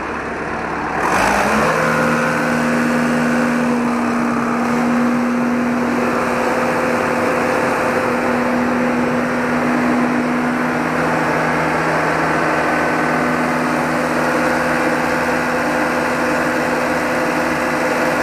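A Bobcat's diesel engine starting about a second in, its pitch rising briefly as it catches, then running steadily at idle. It starts after a battery change, the old battery having been found drained.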